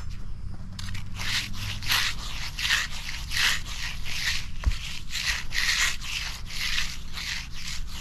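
Hand float scraping over wet, freshly poured concrete in repeated back-and-forth sweeps, about two strokes a second, starting about a second in. This is the floating stage of finishing a concrete slab by hand.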